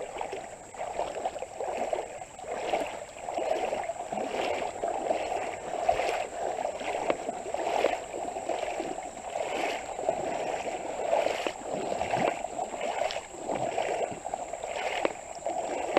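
A person wading through water in boots, each stride sloshing and splashing in an even rhythm of about one and a half steps a second.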